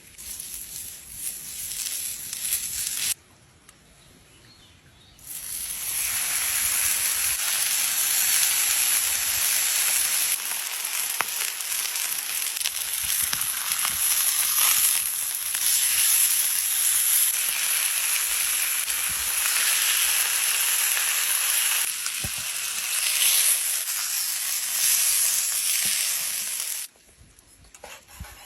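Food sizzling as it fries in a hot pan: a short stretch of sizzling, a brief lull, then a long steady sizzle that stops abruptly near the end.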